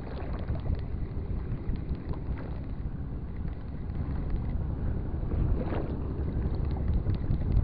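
Wind rumbling on the microphone, with light, rapid ticking from a spinning reel being cranked as a spoon lure is retrieved.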